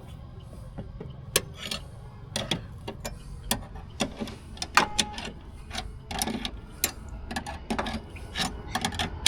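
A car's scissor jack being cranked up by hand with the wheel spanner: irregular metallic clicks and clanks, several a second.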